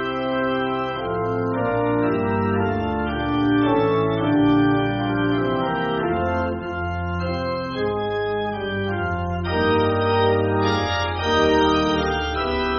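Organ playing slow, sustained chords over held bass notes, the chords changing about once a second.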